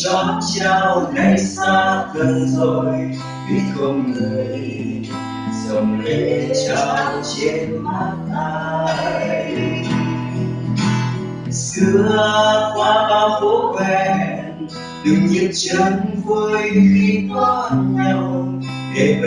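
Acoustic guitar strummed as accompaniment while a voice sings a slow Vietnamese pop ballad, picked up by a security camera's built-in microphone.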